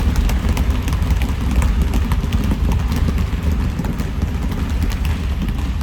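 Many basketballs dribbled fast and low at once by a group of players, a dense run of overlapping bounces in a timed speed-dribbling drill.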